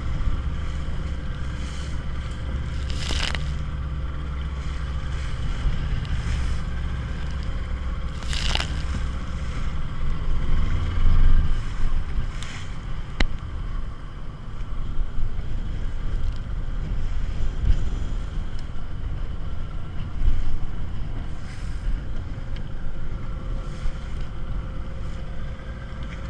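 Small motorboat under way, its engine giving a steady low hum under the rush of wind and water. The engine's hum drops away about eleven seconds in, leaving wind and water noise with occasional knocks and splashes.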